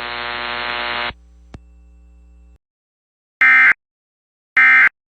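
A steady electrical buzz cuts off about a second in. After a near-silent gap come two short, loud squawks of EAS SAME digital data tones, about a second apart: the end-of-message bursts that close an Emergency Alert System alert.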